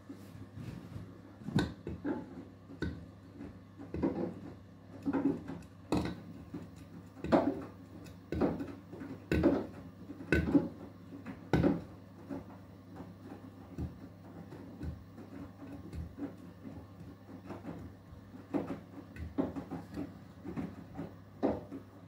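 Beko WTK104121W front-loading washing machine on its Eco 40 wash: wet laundry tumbling in the slowly turning drum, with irregular thuds, clunks and splashes over a steady low motor hum.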